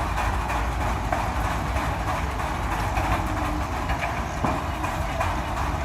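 Steam engine running steadily: a continuous low rumble with a hissing, clattering haze and faint irregular knocks.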